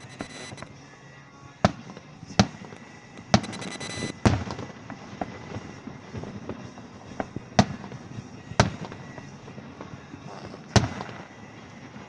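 Aerial fireworks shells bursting: about seven sharp bangs spaced a second or more apart, with a rapid crackle at the start and again about three and a half seconds in.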